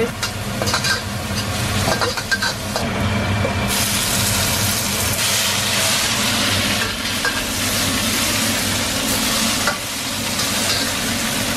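Stir-frying in a wok: garlic and XO sauce sizzling in hot oil while a metal wok spatula stirs and scrapes against the pan, with a few sharp clinks early on. About four seconds in, the sizzle grows louder and fuller and stays that way, with morning glory greens being tossed in the wok near the end.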